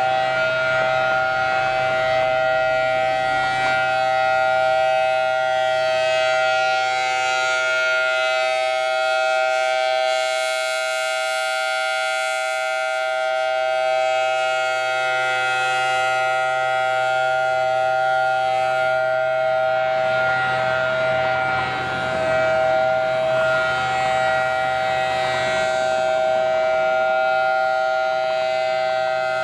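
Federal Signal Thunderbolt 1000T civil defense siren sounding a steady tone during a test, holding one pitch with no rise or fall. Its tone slowly brightens and dulls as it goes.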